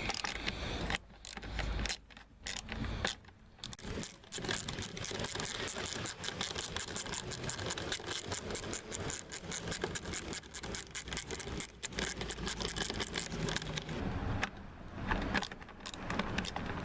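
A socket ratchet wrench with a 10 mm socket clicking rapidly as it unscrews a taillight mounting bolt. The clicking comes in long runs after a few scattered knocks and handling sounds in the first few seconds.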